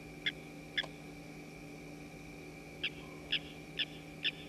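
An animal's short, sharp calls at night, repeated about twice a second: three near the start, a pause, then four more toward the end, over a steady high whine and a low hum.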